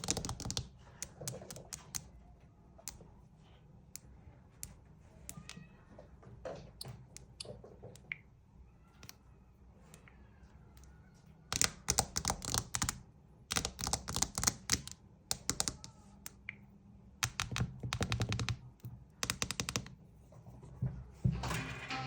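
Rapid clicking like typing on a keyboard. The clicks are scattered at first, then come in dense runs of quick clicks, each run a second or two long, from about halfway through.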